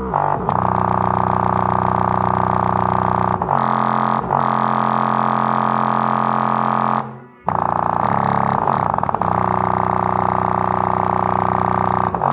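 Fredo 8-inch subwoofer playing a bass test track: a loud, buzzing low drone with many overtones. It shifts pitch a few times and cuts out briefly about seven seconds in.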